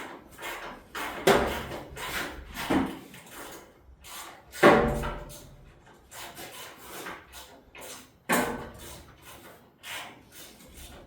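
Hand tools clattering and scraping in a run of short irregular clicks and rubs, with three louder knocks spread through.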